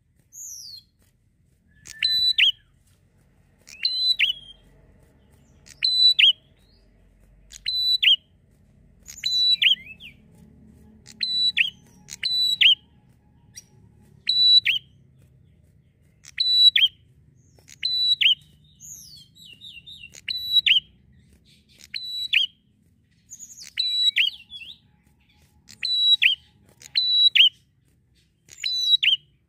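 Prinia (prenjak) calling: a short, sharp, high-pitched chirping phrase, repeated about every two seconds.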